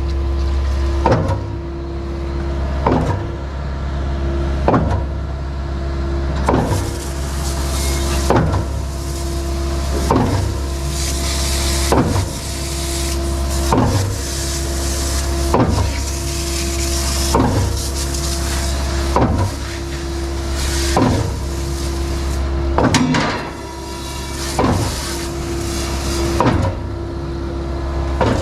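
Skid-steer-powered Mud Demon concrete pump running, with a sharp knock about every two seconds as it shifts at each piston stroke, over the steady drone of the skid steer's engine.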